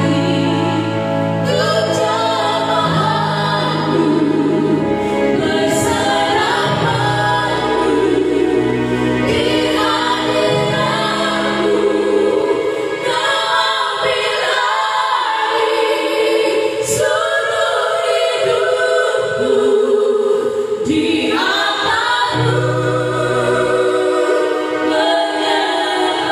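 A group of women singing a Christian praise song together in harmony, with keyboard accompaniment.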